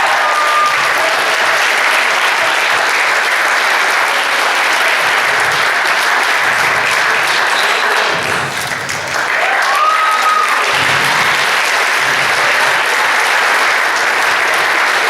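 Audience applauding steadily, with a few cheering voices rising above it near the start and again about ten seconds in.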